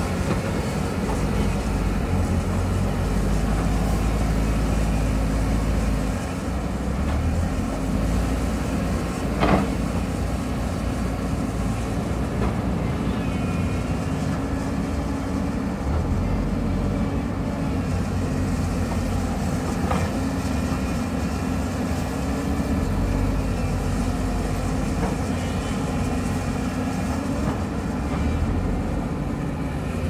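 Hyundai crawler excavator's diesel engine running steadily under load as it works the hillside, with a steady mechanical hum over the engine. Two sharp knocks stand out, one about a third of the way in and one about two-thirds in.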